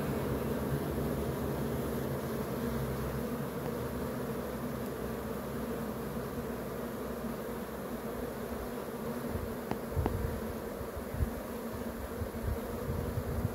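A dense cluster of honeybees humming: the steady massed buzz of thousands of bees, with a few soft bumps near the end.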